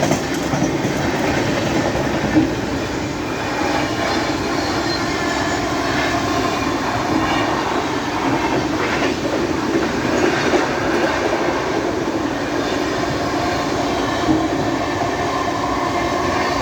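Mumbai suburban local train running at speed, heard from on board: a steady running noise with wheels clicking over the rail joints.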